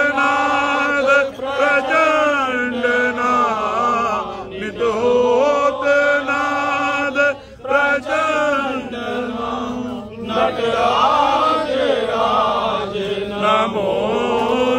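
A man chanting a Hindu devotional hymn in long, wavering sung phrases with short pauses between them.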